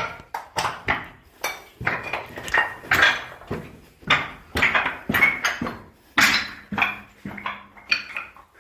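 Footsteps scraping and clattering on a hard, gritty surface, about two to three steps a second.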